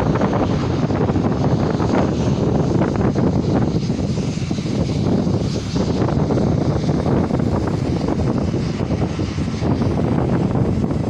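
Jet airliner's engines at takeoff power, a steady loud rumble without pauses.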